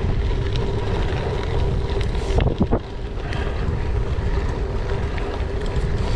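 Wind buffeting a handlebar camera's microphone while a gravel bike rolls along a gravel track, its 38 mm Schwalbe G-One tubeless tyres rumbling with small ticks of grit. A few sharper knocks come about two and a half seconds in.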